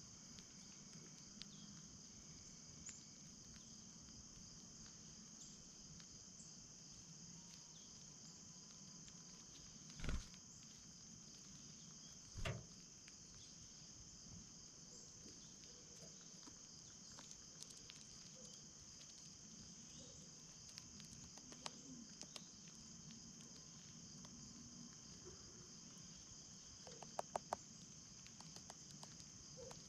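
Near silence with a faint, steady high-pitched insect drone, cricket-like, a few soft clicks, and two dull thumps about ten and twelve and a half seconds in.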